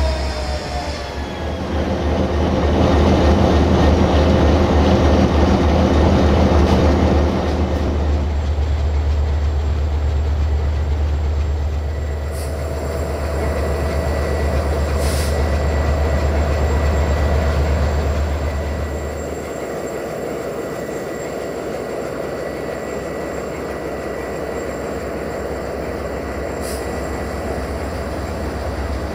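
Diesel-electric locomotives running: a Romanian Class 64 (EGM621) and a Class 60 (060-DA/LDE2100). A strong low engine drone with a stack of steady tones is loudest for the first eight seconds and drops away about twenty seconds in, leaving a quieter steady running sound with a thin whine and a few brief clicks.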